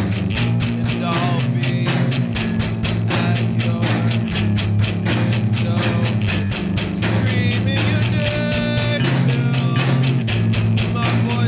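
A rock song playing: a fast, steady drum beat and a bass line under a melodic lead line, in a passage between the sung verses.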